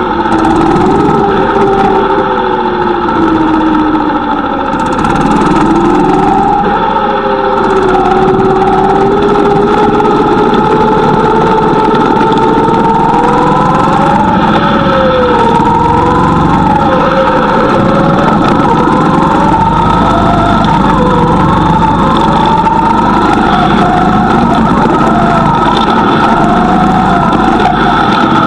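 Go-kart engine running loud and continuously, its pitch rising and falling again and again.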